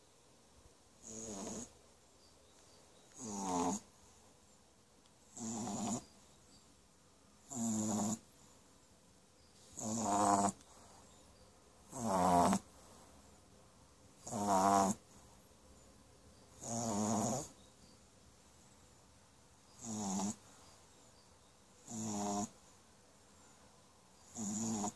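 French Bulldog puppy snoring in its sleep: a regular snore roughly every two seconds, each one short and rising in pitch.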